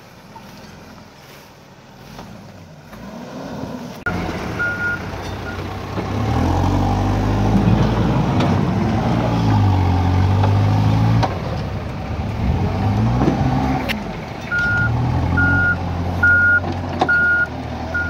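A Case backhoe loader's diesel engine runs and revs up and down, with its reversing alarm beeping about once a second near the end. The first few seconds are quieter: a pickup truck's engine labouring on a muddy track.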